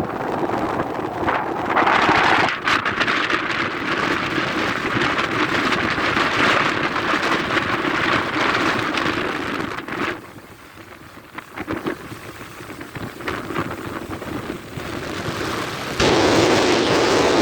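Rushing noise of wind and rain as a thunderstorm arrives. It drops sharply about ten seconds in and jumps back up abruptly near the end.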